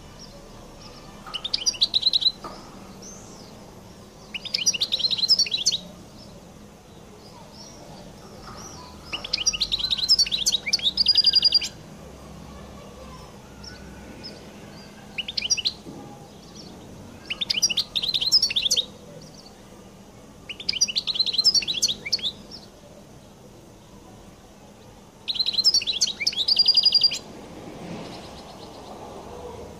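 European goldfinch singing in repeated phrases of fast twittering trills and buzzy rattles, each lasting one to two and a half seconds, about seven phrases with short pauses between them.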